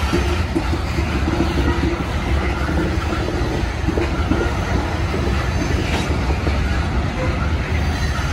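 Loaded covered hopper cars of a Norfolk Southern corn train rolling past: a steady rumble of steel wheels running over the rails.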